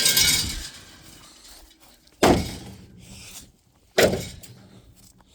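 Three heavy blows to a refrigerator's cabinet, at the start, about two seconds in and about four seconds in: each a sharp bang that rings out and dies away over about a second as the fridge is kicked and battered.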